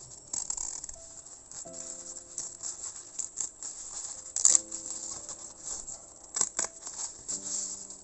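Crinkled crepe-textured paper being rustled and folded by hand: a steady crackly rustle with a few sharp crackles about halfway through and again a little later. Soft background music with sparse held notes plays underneath.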